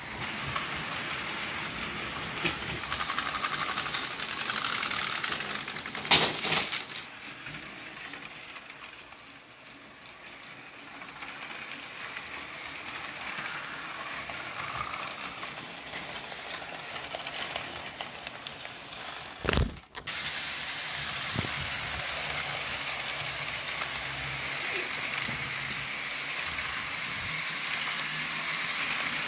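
HO scale model freight train rolling past, its small metal wheels on the track making a steady rolling noise. Two louder knocks stand out, about six seconds and about twenty seconds in.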